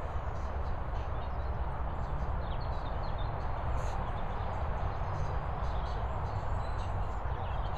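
Steady outdoor background rush with a low rumble, with faint high bird chirps now and then.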